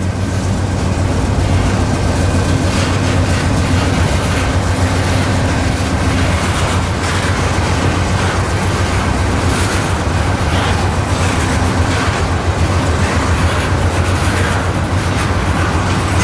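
Freight train of tank cars rolling past at close range: a steady, loud low rumble with steel wheels clattering over the rail joints.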